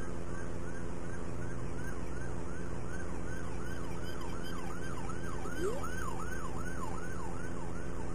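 Police car siren in a fast yelp, sweeping over and over at about three cycles a second and growing louder through the middle, over a steady low hum.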